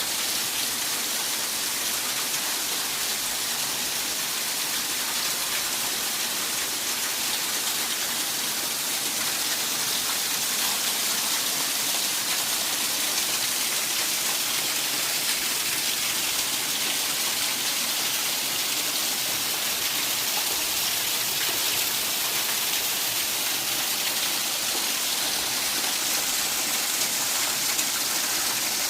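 Steady rush of water.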